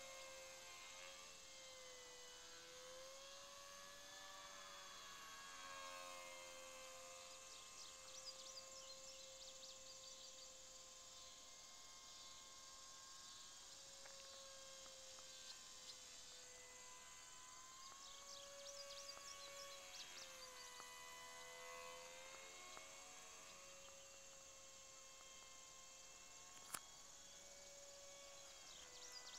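Faint whine of an E-flite Curtiss N9 electric RC model biplane's motor and propeller flying overhead, its pitch wavering and dipping up and down as the plane manoeuvres. A single sharp click comes near the end.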